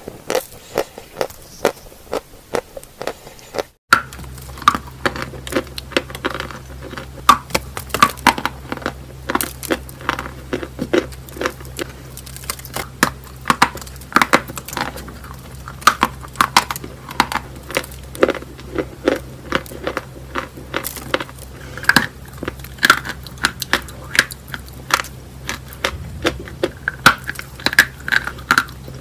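Close-up crunching and chewing of a lump of white chalk, with sharp, irregular crunches a few times a second. After a brief dropout about four seconds in, a low steady hum sits under the crunching.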